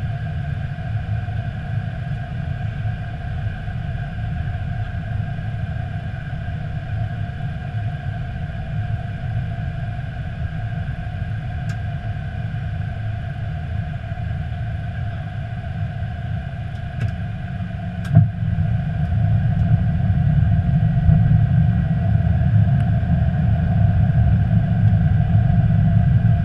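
Airbus A320 flight-deck noise in flight: a steady low rumble of airflow and engines with steady hums above it. A sharp click about two-thirds of the way through, after which the rumble grows a little louder.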